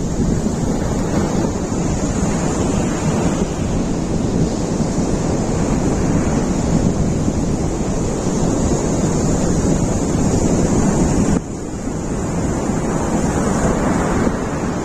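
Sea surf washing on the beach with wind buffeting the microphone, a loud, steady rush that drops abruptly about eleven seconds in.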